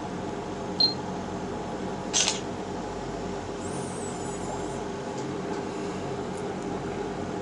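Tablet camera taking a photo: a short high beep just under a second in, then the brief shutter sound a little after two seconds, over a steady background hum.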